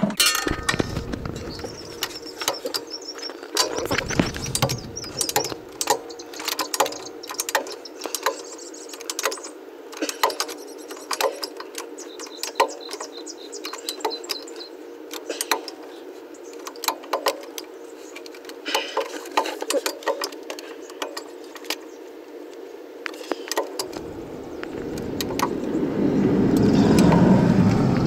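Irregular metal clicks and clinks of a wrench working the bottom strut bolts of a Tein Flex Z coilover on a Toyota 86. Near the end a passing vehicle's noise swells up.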